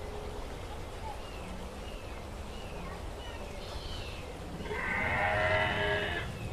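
Animatronic dinosaur's recorded call played from its speaker: one drawn-out, pitched bellow of about a second and a half near the end, as its jaws gape.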